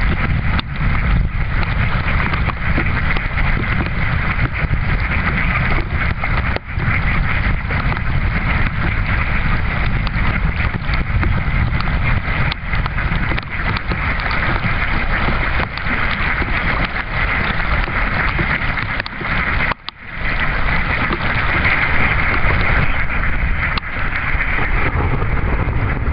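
A continuous din from a large flock of mallards feeding on the water: many overlapping quacks and chatters mixed with splashing, over a steady low rumble. The sound breaks off for a moment about twenty seconds in.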